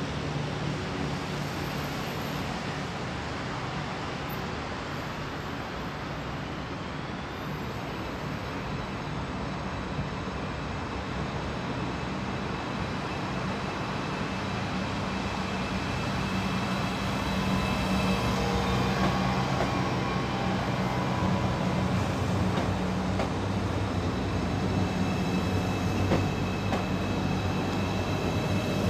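Multiple-unit passenger train approaching along the platform track, with a steady hum and running noise. It grows louder over the second half as the train draws close and passes.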